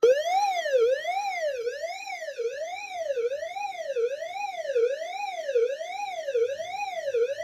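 Fire alarm suppression-release (agent release) evacuation signal: a siren-like tone sweeping up and down about once every 0.8 seconds, starting abruptly. It signals that the suppression releasing system has been activated.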